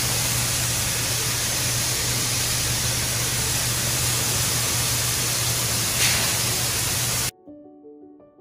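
Shelled corn pouring from a grain-leg spout into a semi hopper trailer: a steady rushing hiss over the low, even hum of the grain-handling machinery, cutting off suddenly about seven seconds in.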